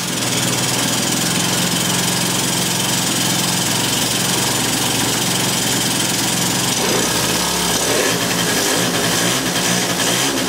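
Yamaha Jog scooter's 50 cc two-stroke engine running at idle, on test to see whether it holds tickover on its own with its carburettor screws freshly adjusted. Its note becomes less even about seven seconds in.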